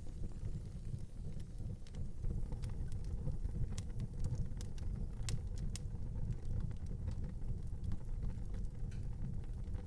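Wood fire in an outdoor fireplace crackling, with scattered sharp pops and snaps over a steady low rumble.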